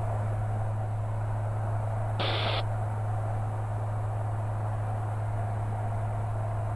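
Maule light aircraft's piston engine and propeller droning at a steady low pitch, as heard inside the cabin through the headset intercom. A brief hiss cuts in about two seconds in.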